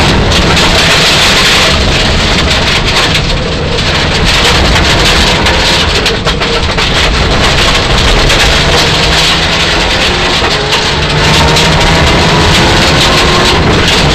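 Mitsubishi Lancer Evolution IX rally car's turbocharged four-cylinder engine heard from inside the cabin at full stage pace, its pitch climbing and dropping through gear changes, with brief lifts a few seconds in. Under it, loud tyre and gravel noise rattles against the body.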